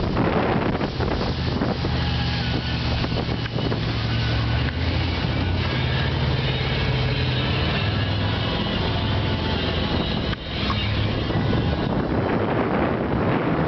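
Motorboat's inboard/outboard engine running steadily underway, a low hum under wind buffeting the microphone. The sound breaks briefly about ten seconds in.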